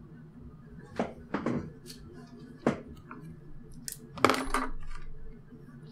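Light clicks and taps of small snipped-off plastic frame pegs being picked up and dropped: a few single clicks a second or so apart, then a short cluster of clicks about four seconds in.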